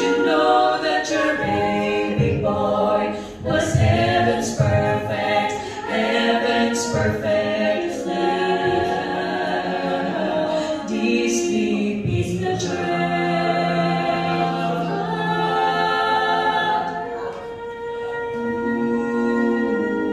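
Female vocal quartet singing a cappella in close harmony, several voices holding and moving between chords, settling into one long held chord near the end.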